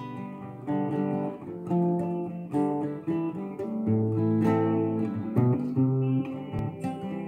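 Classical guitar fingerpicked, a slow line of plucked notes and chords, a new one roughly every second, each left ringing into the next.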